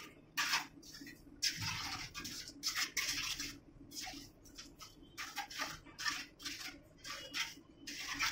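Trowel scraping and spreading wet cement mortar on a concrete floor in a run of short, irregular strokes, laying a bed so the P-trap will sit level.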